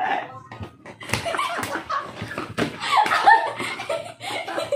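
Two young people laughing hard, with several sharp hand claps among the laughter.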